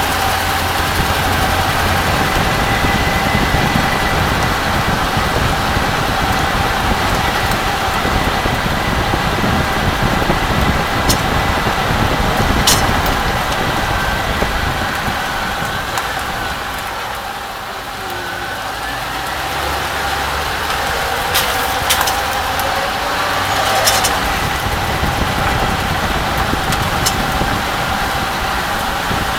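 2004 Chevy Silverado 1500 running on the road with a steady hum, with several sharp metallic knocks and rattles from underneath, some in quick pairs. This is the rattle the truck makes over bumps at low speed; its cause is not yet found.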